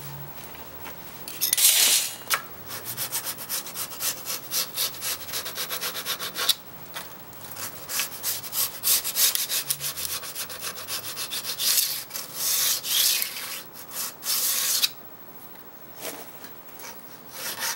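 Hand file rasping along the steel edge of an old Japanese saw blade used as a card scraper, in quick repeated strokes that pause briefly a few times. The filing takes off the old hook and squares the edge before a new one is burnished.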